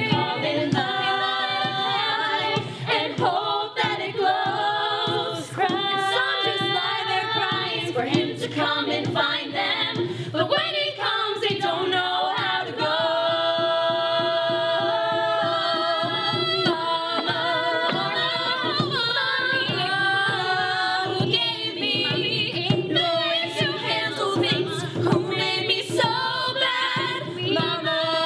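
Group of women singing together in harmony, unaccompanied, a continuous stretch of a sung show tune.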